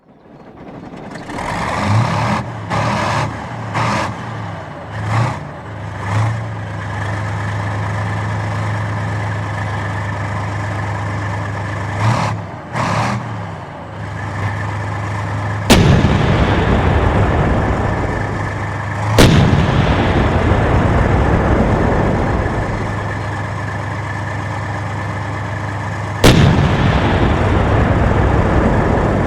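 Tank engine running steadily, with short revving surges in the first few seconds and again around twelve seconds. Then three loud tank cannon shots, about halfway through, around nineteen seconds and near the end, each followed by a long rumbling decay.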